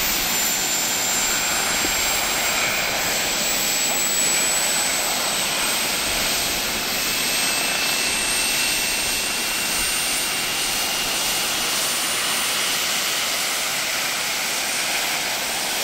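Turbine engine of a large radio-controlled Kaman K-MAX coaxial model helicopter running with its rotors turning: a steady rushing noise with a thin, high whine that rises slowly in pitch.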